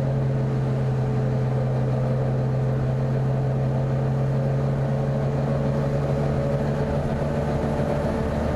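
Volvo B9TL bus's engine cooling fan running with a loud, steady droning hum. The lowest part of the hum eases off slightly about a second before the end.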